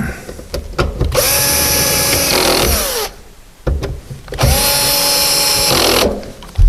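Cordless power screwdriver driving screws into an interior windscreen-pillar trim panel, in two runs of about two seconds each, the motor pitch rising as it spins up and the first run winding down as it stops. Small knocks of handling between the runs.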